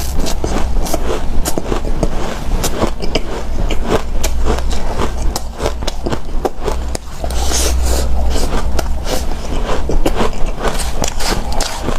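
Close-miked biting and chewing of powdery refrozen freezer ice: a dense, irregular run of quick crunches and scraping squeaks, with a steady low rumble underneath.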